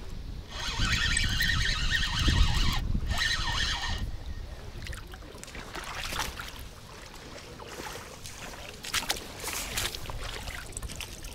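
Wind buffeting the microphone for the first few seconds. Then quieter splashing and sloshing of shallow water, with a few sharper splashes near the end as a landing net is pushed out to land a hooked crucian carp.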